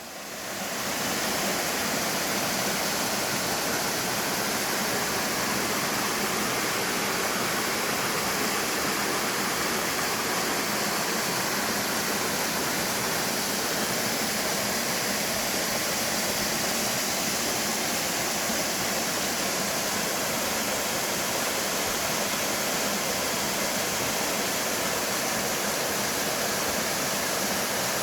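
Waterfall in a mountain valley stream: a steady rush of falling water that fades in over the first second and then holds even.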